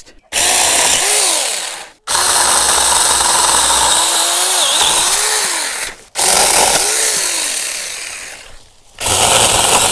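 Saker 6-inch cordless electric mini chainsaw running and cutting through small branches, in several runs of a second or more each, its pitch rising and falling as it cuts. One run dies away about eight seconds in before the saw starts again near the end.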